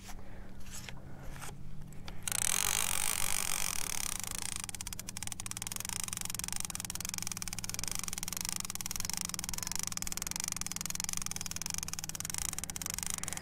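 Okuma Magda line-counter trolling reel cranked steadily, a continuous fine gear whir starting about two seconds in, as a hooked walleye is reeled toward the boat. Under it, the steady low hum of the boat's outboard motor running at trolling speed.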